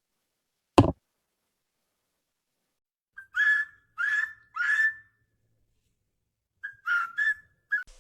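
A sharp knock about a second in, then high-pitched kitten mews: three in a row, then a quicker run of four or five shorter ones near the end.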